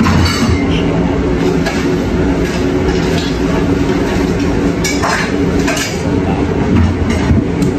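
Steady low mechanical rumble with faint tones in it, with a few short light clinks, the sharpest about five seconds in.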